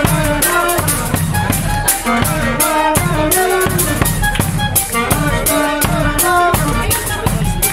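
A brass band playing live: bass drum and snare beating a regular rhythm under a brass melody.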